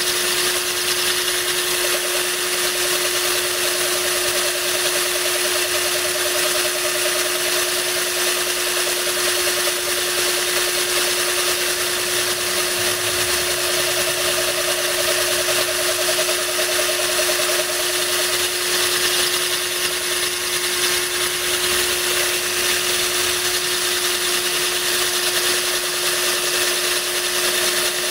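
Power drill running steadily at one pitch as its bit grinds a hole into a glass bottle, with a stream of water from a hose nozzle splashing onto the cut to keep it cool.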